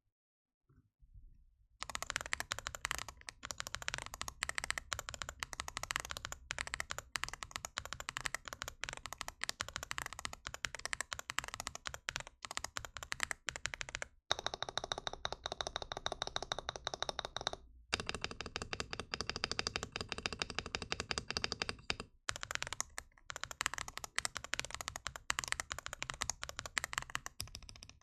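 Typing on a mechanical keyboard fitted with Outemu Tactile Panda tactile switches, in a GMK67 board with tape mod, lubed stabilisers and full sound-dampening foam. A rapid, continuous stream of keystrokes starts about two seconds in, broken by a few brief pauses.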